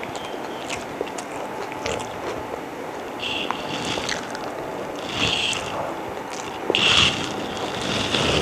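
Close-up mouth sounds of a person eating: chewing and biting, with short smacking bursts about three, five and seven seconds in.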